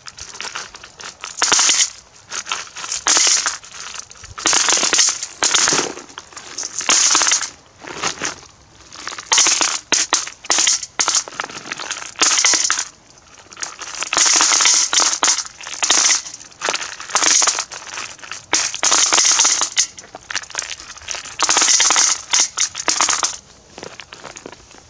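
Russian coins of 1 to 10 rubles pour in repeated bursts from a plastic jug into a galvanized metal bucket, clinking and jingling onto the pile of coins already in it. The bursts come about every one to two seconds and stop shortly before the end.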